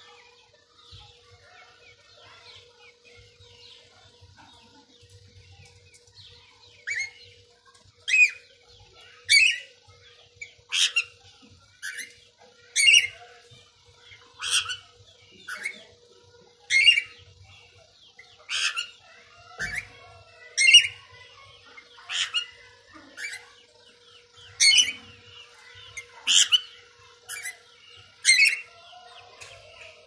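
Rose-ringed parakeet (Indian ringneck) giving loud, short, high-pitched squawks, one about every second, starting about a quarter of the way in after a quieter stretch.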